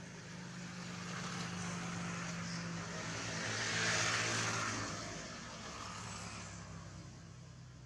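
A motor vehicle passing by: a steady engine hum that grows louder to a peak about four seconds in, then fades away.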